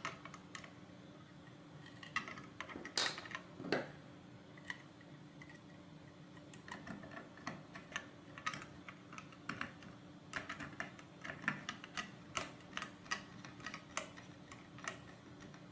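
Small metal bolts and a screwdriver clicking and tapping as an Arduino Uno board is bolted down onto standoffs on a robot car chassis. The clicks are scattered at first and come thicker and faster in the second half.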